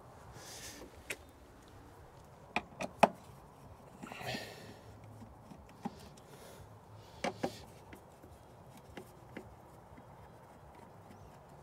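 Scattered light clicks and knocks of a screwdriver, screws and a plastic charger cover being handled as the cover screws are undone by hand, the loudest knock about three seconds in, with a couple of short rustles.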